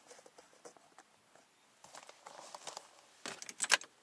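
Small clicks and soft rustling of the camera being handled inside a car cabin, with a louder burst of rustling about three and a half seconds in.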